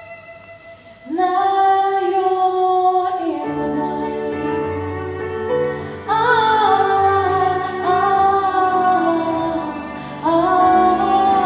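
Live music: a woman sings long held notes through a microphone over instrumental accompaniment. Her voice comes in about a second in, with new phrases starting about six and ten seconds in.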